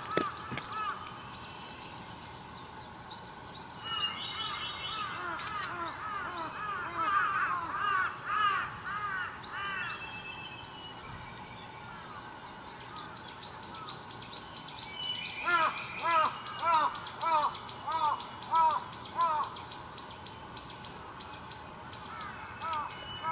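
Several wild birds calling at once: long, fast series of short, high-pitched notes, overlapped by runs of lower, arched whistled notes that come twice in bursts of a few seconds.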